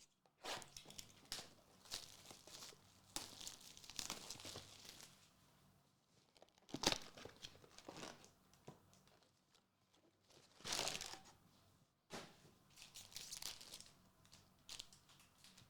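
Packaging of a Gundam trading card game booster box being torn and crinkled open: a string of separate tearing and crinkling rustles with a few sharp clicks in between.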